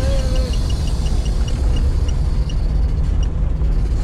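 Car cabin while driving: a steady low rumble of engine and tyres, with a string of short high electronic beeps, about three a second at first and spacing out later.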